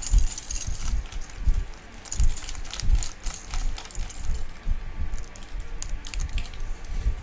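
Clear plastic bag of toy building bricks crinkling and rustling as it is handled and opened, with small plastic bricks clicking and rattling inside it. Dull bumps from the handling run underneath, and a quick run of sharper clicks comes near the end.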